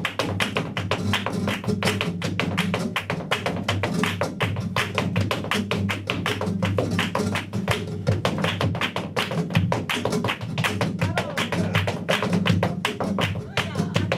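Flamenco dancer's zapateado footwork, rapid heel and toe strikes on a stage, over a flamenco guitar playing tientos.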